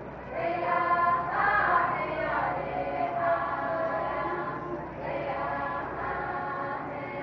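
A group of men and women singing together, a powwow hand-drum song. The voices come in about half a second in and drop briefly about five seconds in before going on.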